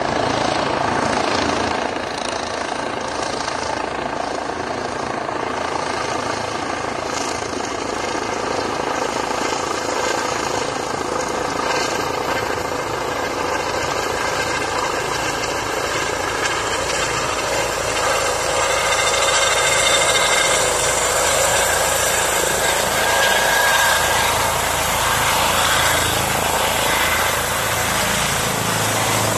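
Air ambulance helicopter descending to land, its rotor and turbine noise steady throughout and growing somewhat louder in the last third as it nears the ground.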